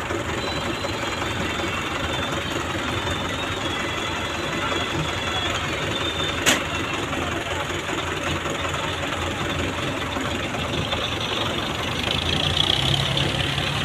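Belarus tractor's diesel engine running steadily under load while pulling a trolley heaped with earth, with one sharp click about six and a half seconds in. A second engine's steady low hum joins near the end.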